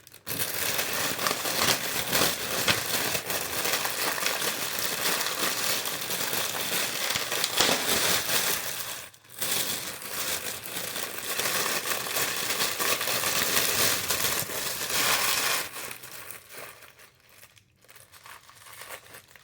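Plastic packaging crinkling and rustling as a boxed figure is unwrapped by hand. It goes on steadily for about fifteen seconds with one short break midway, then thins to faint rustles and clicks near the end.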